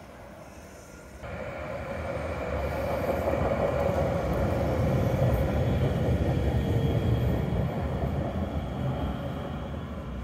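Articulated street tram passing close by on street track. The low rolling rumble of its wheels on the rails swells to a peak in the middle and then fades, with a steady mid-pitched whine over it.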